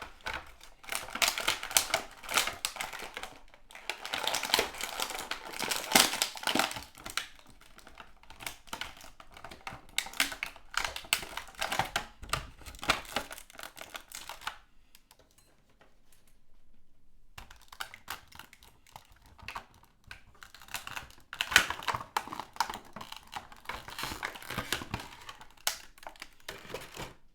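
Plastic blister packaging crinkling and clicking as an action figure is worked free of its tray, in bursts of rustling and sharp clicks with a quieter pause of a few seconds about halfway through.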